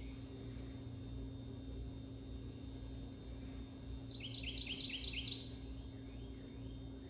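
A Hunter Castleton ceiling fan running with a steady low hum. About four seconds in, a bird sings a quick trill of falling notes lasting just over a second.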